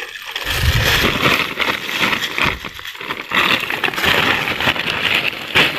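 Close, dense rustling and crackling with many small clicks, as of tall grass and brush or plastic being handled up against the microphone, with low knocks in the first second.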